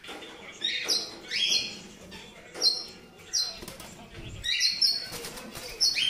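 Caged pet birds calling: a string of short, sharp calls that sweep down in pitch, one after another from several birds, with wings fluttering against the cages about five seconds in.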